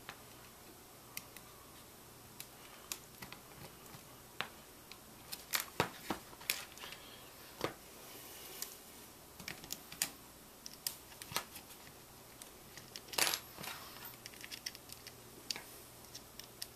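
Scattered small clicks and taps of a hex driver and pliers against a small machine screw and locking nut as the screw is snugged down, with a few louder clicks from the tools and hardware being handled.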